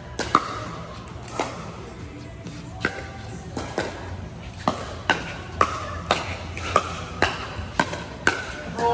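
Pickleball rally: paddles hitting a plastic ball back and forth, each hit a sharp pock with a short ring. The hits come faster in the second half, about two a second.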